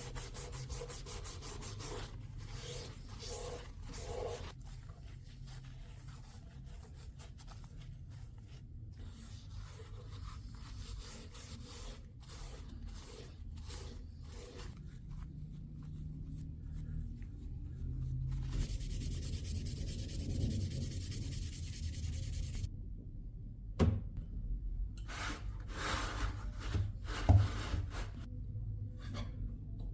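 Hand rubbing and sanding strokes on the sword, going irregularly with pauses between, and two sharp knocks in the second half.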